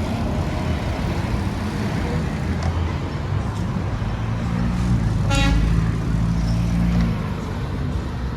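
City street traffic: motor vehicles running past with a steady low rumble that swells as one goes by, and a brief car horn honk about five seconds in.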